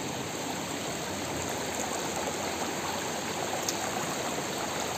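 Shallow rocky stream running, a steady, even rush of water.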